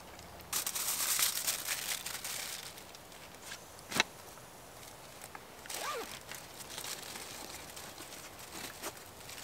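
Rustling and crackling of clothing and fabric on a ground blanket as a person sits up, loudest for about two seconds near the start, then one sharp click about four seconds in and lighter rustling afterwards.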